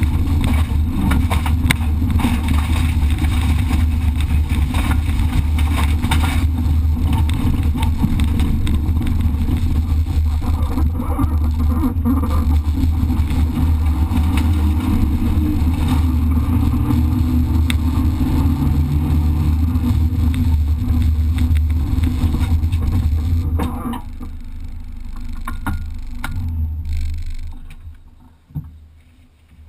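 Competition car's engine running hard at speed on a dirt track, heard from a camera mounted on the car with road and wind noise. The engine note drops sharply about six seconds before the end as the car slows, and the sound fades away as the car comes to a stop.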